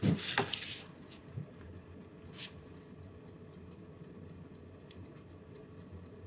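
Mechanical wind-up alarm clock movement ticking steadily, about four ticks a second, the clock running again. A brief handling rustle near the start and a single louder click a couple of seconds in.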